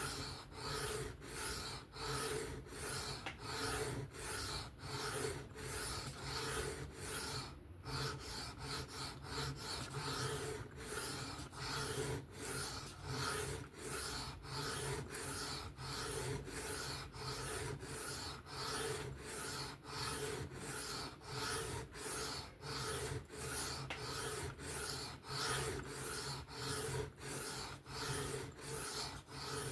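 Knife blade stroked back and forth by hand over a sharpening stone: an even rasping scrape, a little under two strokes a second, with a brief pause about eight seconds in. The strokes are refining the edge's scratch pattern.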